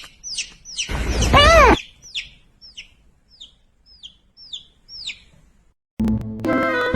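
A bird chirping: a quick run of short, high chirps that slide downward, about two a second. About a second in, a louder drawn-out call rises and then falls. Music starts near the end.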